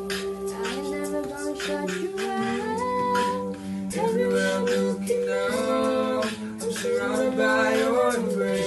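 An a cappella group singing in harmony: several voices hold chords over a sustained low bass note, with a steady percussive beat.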